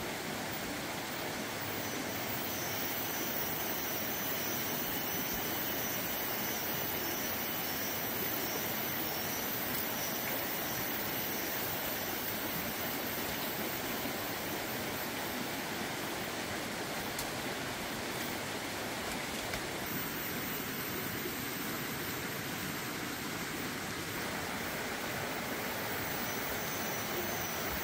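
A steady, even rushing noise with no distinct events, of the kind flowing water or rain makes.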